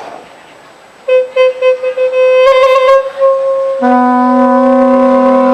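Wind-instrument music: a reedy wind instrument plays a held note with quick ornamental flourishes. Just past the middle, a loud steady low drone sets in beneath a long held higher note. A short sharp click comes at the very start.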